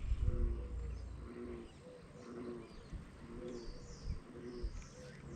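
A low cooing bird call, one short note repeated evenly about twice a second, with faint high chirps from small birds above it.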